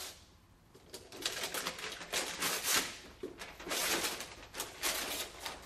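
Gift wrapping paper being torn off a box and crinkled: a run of rustling rips that starts about a second in and comes in clusters.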